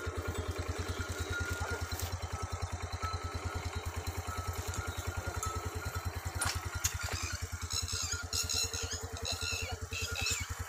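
Motorcycle engine running at low, steady revs with an even, fast putter. Brief high chirps come in over it in the last few seconds.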